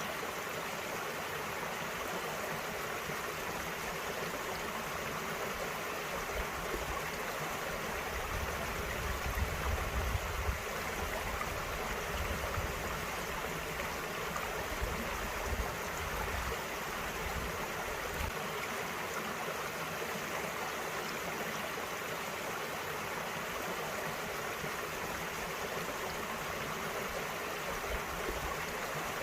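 Small mountain stream running over rocks: a steady rushing and babbling of water, with a low rumble swelling briefly about eight to eleven seconds in.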